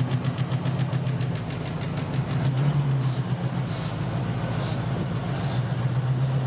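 Ford V8 in a 1978 Mustang II King Cobra idling steadily just after start-up, with a fast light ticking over the first couple of seconds.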